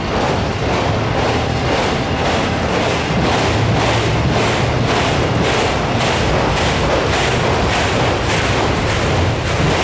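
Freight train's autorack cars rolling past close by: a steady rumble of steel wheels on rail, with a regular clacking as the wheel trucks pass.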